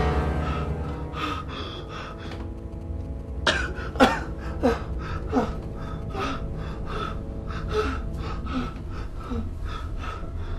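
A young man panting hard after being startled awake: quick, heavy breaths, with several sharp gasps about three and a half to five and a half seconds in, over a low steady drone.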